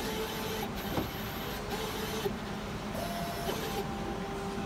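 Automated pizza-assembly machine running as it sauces and cheeses a pizza base. Its motors whine in steady tones that jump between pitches as the parts move, over a steady mechanical hiss, with a sharp click about a second in.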